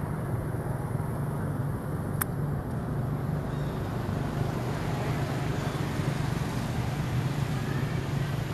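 Steady low rumble of outdoor background noise, like distant traffic, with one short click about two seconds in.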